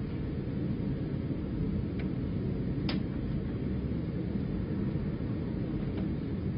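Steady low background rumble with no speech, and a few faint clicks: one about two seconds in, a clearer one about three seconds in, and another near the end.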